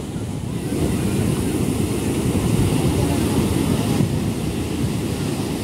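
Surf breaking and washing up the sand, mixed with wind buffeting the microphone as a low rumble; it grows louder about a second in.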